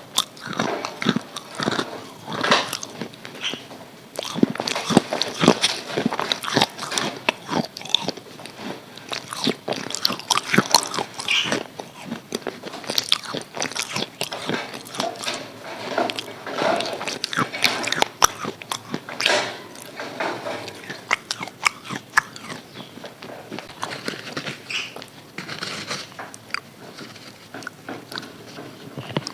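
Close-up biting and chewing of crispy KFC fried chicken: repeated crunches of the breading between softer chewing, with no steady rhythm.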